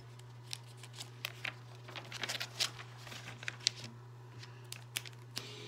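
Pages of a paper comic book being handled and turned: scattered soft paper rustles and small clicks, over a steady low hum.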